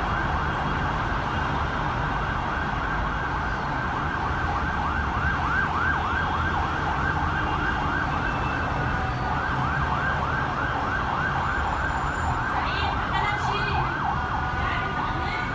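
Ambulance siren in a fast yelp, about four rising-and-falling sweeps a second, over the low rumble of jammed road traffic; the yelp stops near the end.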